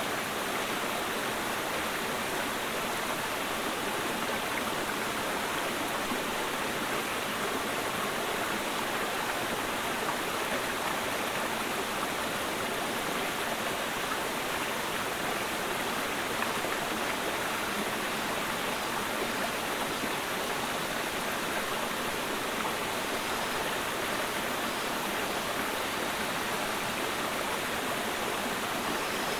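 Clear mountain stream of spring-fed water flowing and babbling over rocks, a steady, unbroken rush of water.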